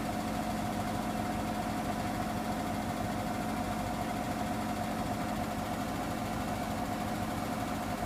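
Hoover front-loading washing machine running its Refresh programme near the end of the cycle: the drum motor runs with a steady hum and a constant whine, the level never changing.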